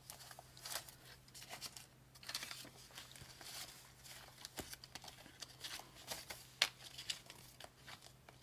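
Paper banknotes handled and counted by hand: a run of crisp rustles and flicks as bills are shuffled and moved, with one sharper snap about three-quarters of the way through.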